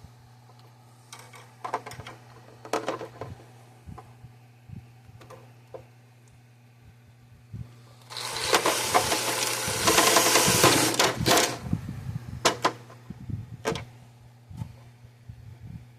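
Power drill running, drilling a hole for about three seconds past the middle, with scattered clicks and knocks of tool handling before and after.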